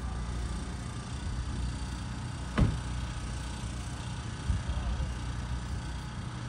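A steady low machine hum, with one sharp click about two and a half seconds in and a few soft low bumps near the middle.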